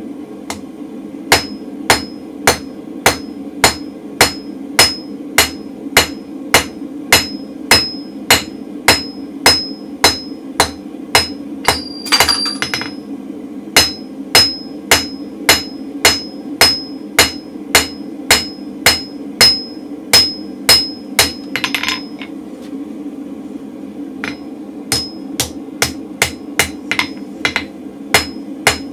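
Hand hammer striking red-hot mild steel on an anvil, flattening it, in a steady rhythm of about two blows a second, each with a short high ring. The blows stop for about two seconds about three-quarters of the way through, then resume.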